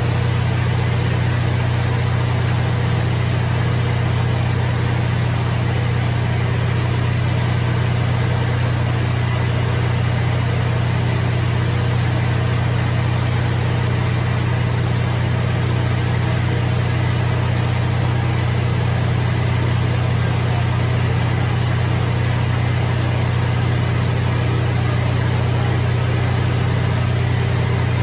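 Large 1250 kVA diesel generator set running steadily under a heavy electrical load of about 1000 kW, giving a constant low drone with no change in engine speed.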